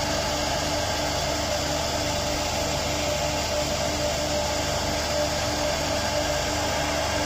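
CNC router spindle running steadily as its fine carving bit cuts a relief pattern into a wooden panel: a continuous machine hum and hiss with a steady tone, and a fainter tone pulsing about twice a second.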